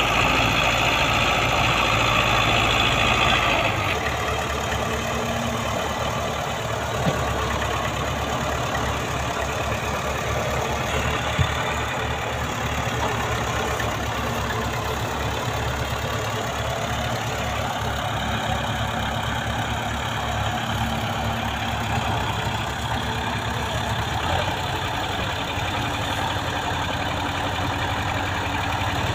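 Tractor diesel engines running under heavy load as a loaded sugarcane trolley is pushed and pulled. The engine sound is loudest and fullest for the first four seconds, then drops to a lower, pulsing beat, with a couple of brief knocks a few seconds later.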